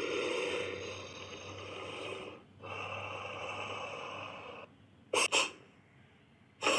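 Designed creature sound effect for a Tylosaurus: two long, breathy wheezing exhales, then two short snorts about five seconds in.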